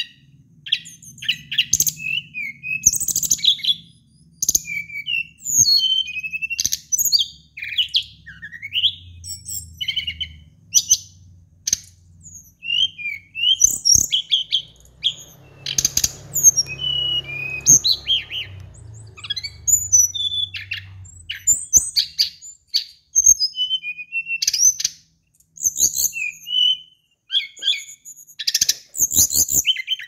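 Brown-chested jungle flycatcher (SRDC, Sikatan Rimba Dada Coklat) singing: a fast, varied run of short high chirps, whistled glides and quick trills with only brief pauses.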